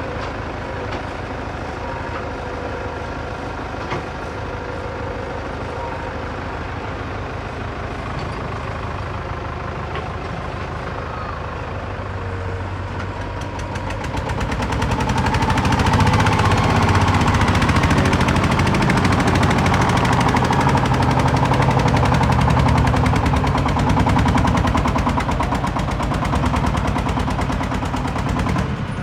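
Excavator's diesel engine running with a fast, rattly beat, revving up and working harder about halfway through as it takes on load.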